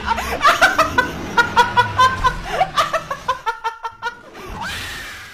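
A young woman laughing hard and high-pitched, in quick repeated bursts that trail off near the end.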